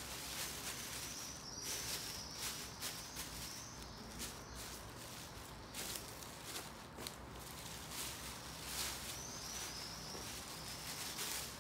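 Thin plastic bag crinkling and rustling in irregular bursts of crackle as gloved hands handle and smooth it flat.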